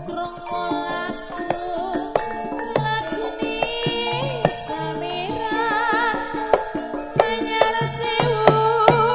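Banyumasan gamelan playing: bronze metallophones and bonang kettle-gongs struck in a steady, even pattern of ringing notes. A female sindhen sings over them with a wavering, ornamented voice.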